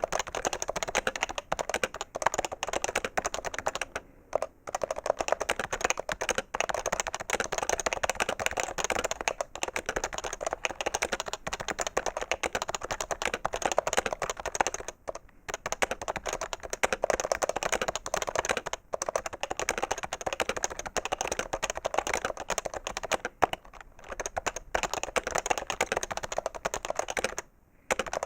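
Fast, continuous typing on a PFU HHKB Professional 2 keyboard with Topre capacitive switches: a dense run of keystrokes with a few brief pauses, the last near the end.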